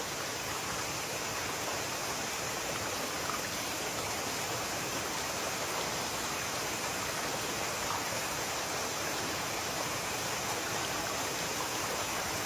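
Steady rush of water from a mountain stream and small waterfall, an even, unbroken hiss.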